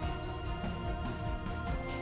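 Background music with a steady beat and sustained instrumental tones.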